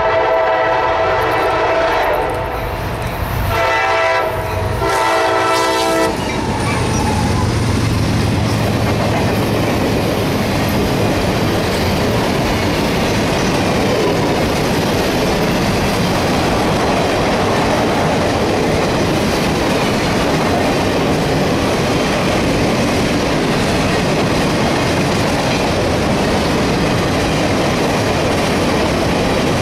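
A CSX SD50-2 diesel locomotive's horn sounds three blasts over the first six seconds as the ballast train approaches. The locomotive then passes and a long string of ballast hopper cars rolls by, the wheels making a steady noise on the rails.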